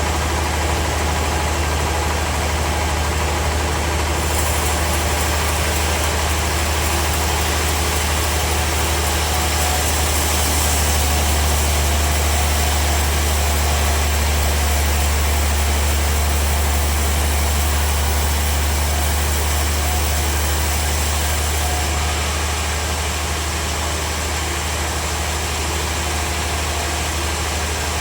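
Sawmill machinery running steadily with a strong low hum and a wide hiss. The hiss turns brighter about four seconds in and eases back near the end.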